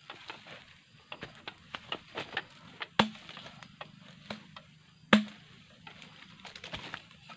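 Two heavy chopping blows about two seconds apart, each with a short dull ring, amid lighter clicks and crackles: a pole-mounted harvesting tool striking the stalks and fronds of a low oil palm.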